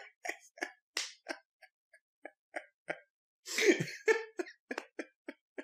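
A man laughing silently and breathlessly: short wheezy gasps and snorts about three or four a second, with one louder burst of laughter about three and a half seconds in.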